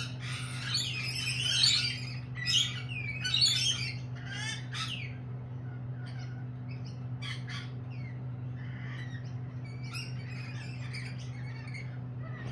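Lorikeets calling and chattering: a dense flurry of shrill calls in the first few seconds, thinning to scattered short calls after that.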